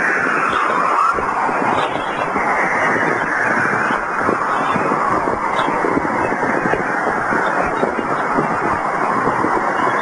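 Electronic space-themed sound piece: a dense, steady rushing noise like a jet or wind, with slow whooshes falling in pitch every couple of seconds.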